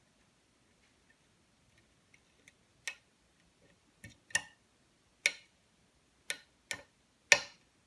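Pick and pin tumblers clicking inside a pin-tumbler challenge lock being picked: faint ticks at first, then about seven sharp separate clicks from about three seconds in, the loudest near the end, as pins are lifted and click toward the set position.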